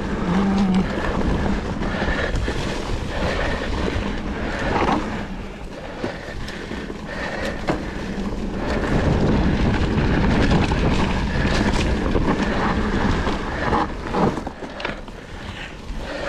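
A mountain bike rolling along a leaf-covered dirt trail: tyre noise and the bike's rattle, with scattered clicks and knocks, under steady wind rumble on the microphone.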